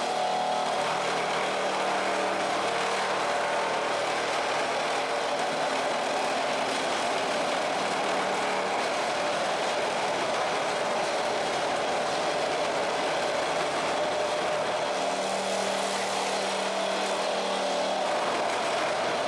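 Kyokuto SM-15 floor scraper running steadily, a continuous mechanical drone with a constant hum.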